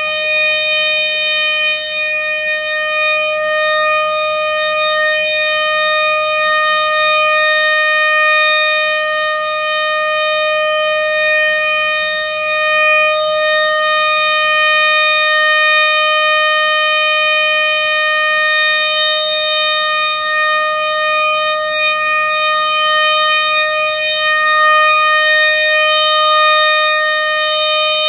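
Civil-defence siren holding one steady tone, the commemorative siren sounded at "Godzina W" for the Warsaw Uprising.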